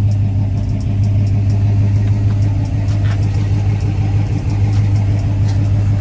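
The V8 engine of a 1987 Chevrolet Monte Carlo SS idling steadily, with a deep, even exhaust hum.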